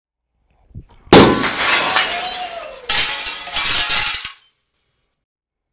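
A glass pane shattering as a heavy steel-based T.E.D.D. distraction device is thrown through it: a sudden loud crash about a second in, then breaking glass falling and tinkling, with a second surge of crashing glass near three seconds in.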